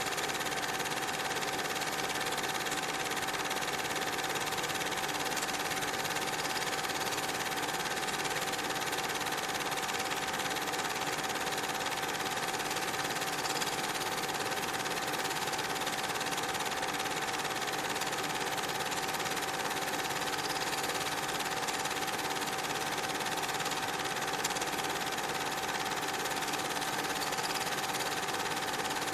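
Steady mechanical whirring with hiss and a constant high whine, unchanging throughout.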